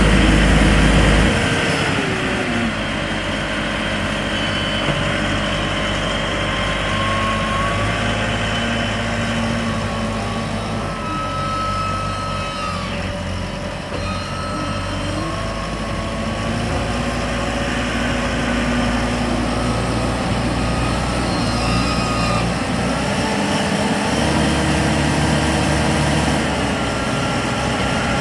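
Diesel engine of a small self-loading concrete mixer truck running at work, its speed stepping up and down every few seconds, with a thin high whine that comes and goes. A heavy low rumble is loudest in the first second.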